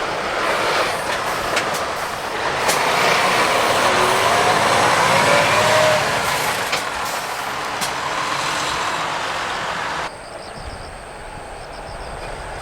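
Heavy diesel trucks driving in, a loud steady mix of engine noise and rolling, with a few sharp clicks; the sound drops suddenly to a quieter level about ten seconds in.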